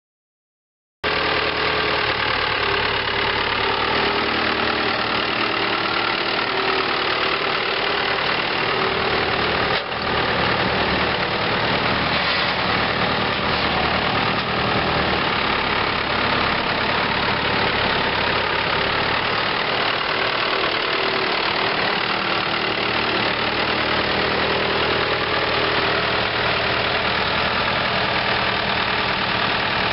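1982 Ford 7610 tractor's 4.4-litre four-cylinder turbo diesel running steadily at idle.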